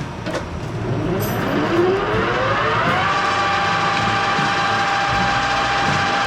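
Stanko 1K62 lathe spinning up: a whine rising in pitch for about two and a half seconds, then holding steady once the spindle is up to speed.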